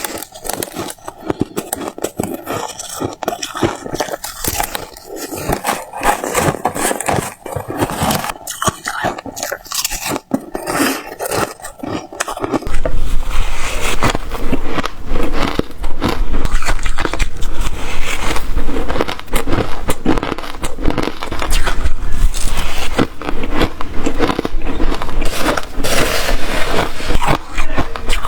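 Close-up biting and chewing of white freezer ice and frost: dense crunching and crackling bites. About twelve seconds in it changes abruptly to louder, denser crunching with a low hum underneath.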